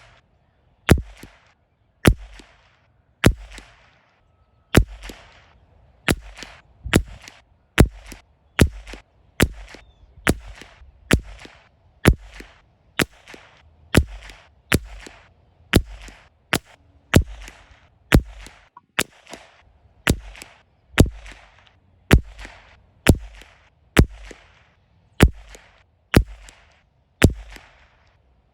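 A .22LR CZ 457 rifle firing shot after shot, about one a second, each crack trailing off briefly.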